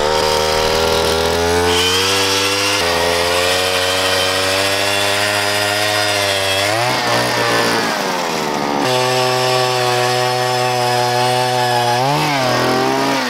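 Gas-powered ice auger drilling through lake ice, its small engine running at high revs. The pitch sags and recovers twice as the bit loads in the ice.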